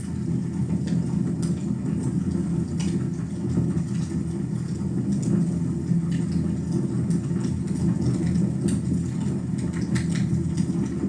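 Wood fire burning in a fireplace: a steady low rush of flames with scattered crackles and pops.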